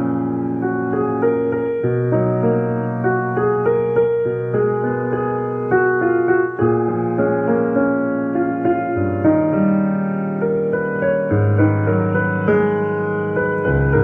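Background music: a piano melody over sustained chords.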